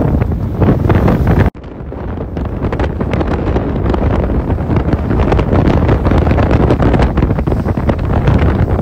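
Force-5 bise wind buffeting the microphone aboard a heeling sailboat, with water rushing and splashing along the hull. The noise cuts off suddenly about a second and a half in, then returns and builds again.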